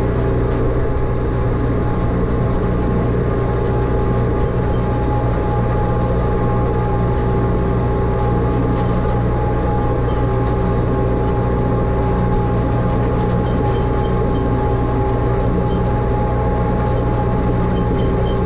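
Farm tractor engine running steadily under load, with a low, even hum, while it drives and pulls a PTO-driven rotary hay rake. It is picked up close to the engine from the tractor's hood.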